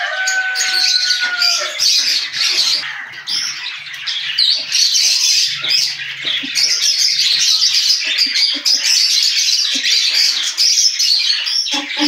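Many small aviary birds chirping and twittering at once in a dense, unbroken chorus. A single clear, slowly falling note sounds over it at the start.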